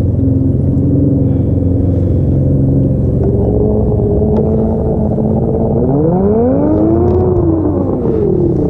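Motorboat engine running steadily, then revving up and back down about six seconds in; the angler nearby judges that it does not sound healthy.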